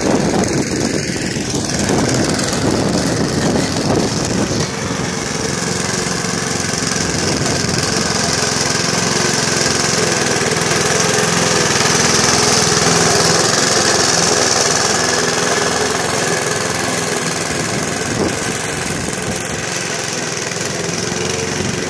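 Remote-controlled electric lawn mower running steadily, its blade spinning as it drives across and cuts grass: a continuous motor hum with a hiss above it, swelling slightly midway.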